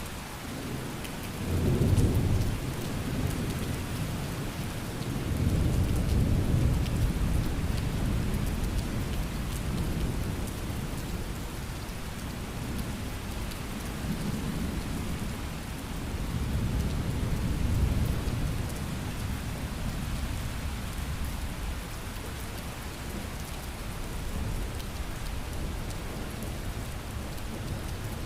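Thunderstorm: steady rain falling, with thunder rumbling several times. The sharpest rumble comes about two seconds in, and longer rolls follow from about five seconds and again near the middle.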